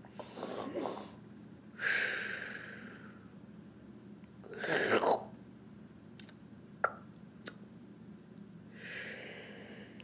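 A woman making pretend snoring sounds: four drawn-out breathy snores, the loudest one building up about halfway through, with a few small clicks after it.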